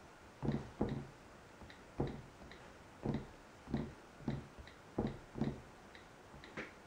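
Typing on an iPad's on-screen keyboard: about ten light key taps and clicks at an uneven pace.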